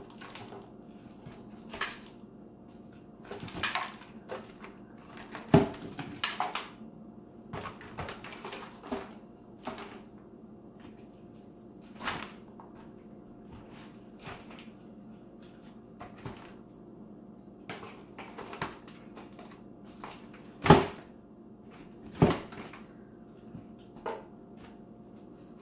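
Lopper blades biting through hard chaga mushroom in a foil pan: irregular sharp cracks and knocks every second or so, the loudest about five seconds in and twice near the end, over a faint steady hum.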